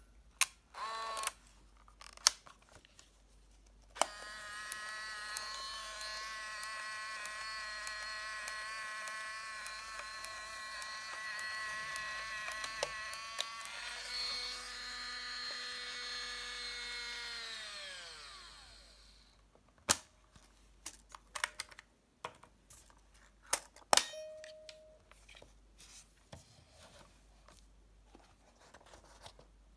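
Olympus Trip AF 60 compact film camera's built-in film-transport motor: a few short whirs in the first second, then a steady motor whine with light clicks about twice a second, which shifts lower after about ten seconds and slows to a stop, falling in pitch. Afterwards, small handling clicks on the plastic body and one short whir.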